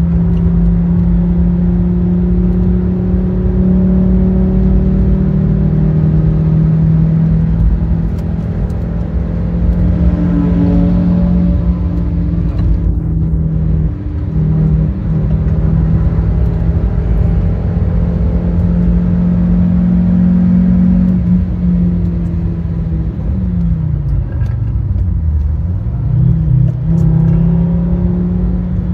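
Fiat Stilo Abarth 2.4 20V five-cylinder engine running hard at steady revs. About 24 seconds in, the revs drop sharply and then climb back up.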